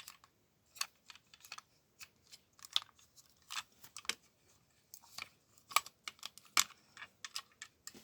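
Hard plastic parts of a 1987 Transformers G1 Misfire toy clicking and snapping as it is folded by hand from robot into jet mode: irregular sharp clicks, two or three a second.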